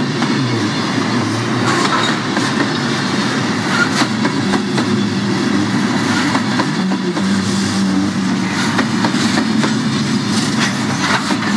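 Freight train's tank cars and gondolas rolling past close by: a steady rumble of steel wheels on rail, broken by irregular clicks and clanks.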